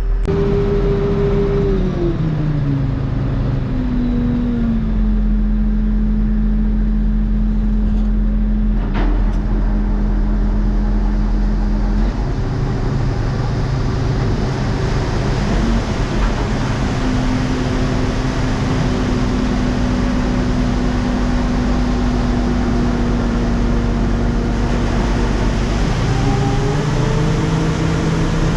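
Tractor engine running under load, heard from the cab. It slows down over the first few seconds, runs steadily, picks up slightly about halfway through, then speeds up again near the end.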